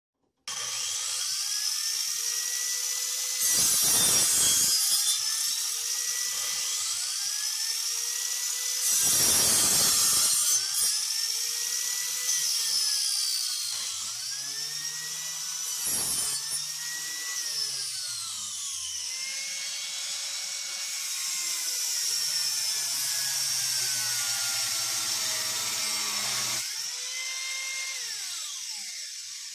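Angle grinder mounted in a stand, its motor whine rising as it spins up and falling as it winds down, again and again. Loud cutting noise comes twice, a few seconds in and about ten seconds in, as the blade saws through a workpiece such as a wooden plank, with a shorter cut about sixteen seconds in.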